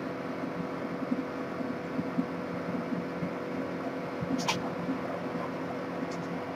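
Steady hum with a constant tone over room noise. A brief pencil scratch on paper about four and a half seconds in, and a few faint ticks near the end.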